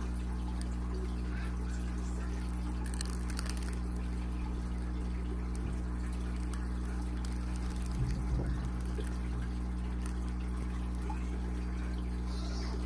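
Small water pump humming steadily, with water trickling over it; a brief low thump about eight seconds in.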